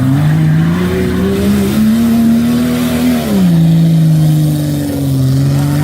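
Off-road 4x4 vehicle's engine revving hard under load: the pitch climbs steadily for about three seconds, drops sharply, then holds lower and eases down again near the end.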